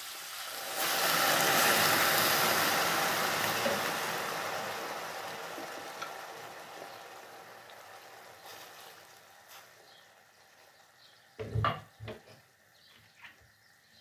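Wine hitting a hot stainless pot of sautéed wild bird meat, garlic and onion: a loud sizzle that flares up about a second in and then slowly dies down. Two short knocks near the end.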